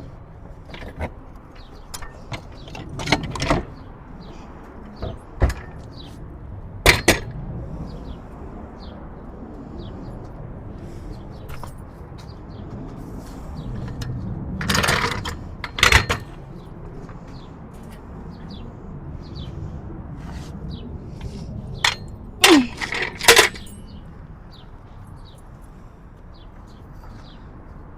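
Scattered sharp metallic knocks and clanks from hammering and prying on a scrapped forklift's parts: single hits and a few close pairs spread irregularly, over a steady low rumble.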